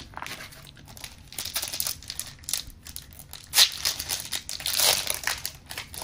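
Plastic trading-card booster pack wrapper crinkling and being torn open in short irregular bursts. The sharpest rip comes about three and a half seconds in, and a longer crinkle follows near five seconds.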